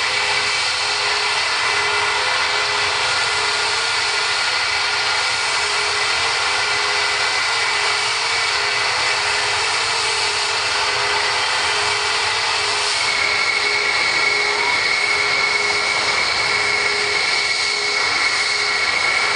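Concorde's Olympus 593 turbojet engines running at taxi idle as the aircraft rolls past close by: a steady rush with a high whine, which grows a little louder partway through.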